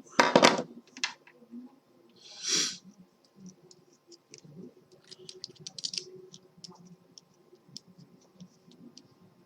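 Small parts being handled: a loud knock at the start, a short hiss a couple of seconds in, then a run of small light clicks.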